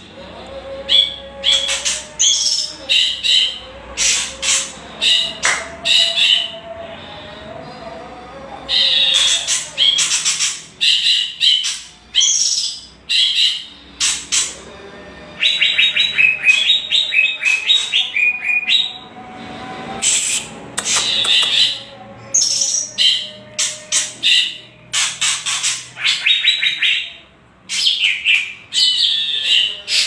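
Songbird giving harsh, rapid rattling 'kretekan' calls, the agitated calls used to provoke other songbirds: short high bursts of fast strokes, one after another with brief gaps.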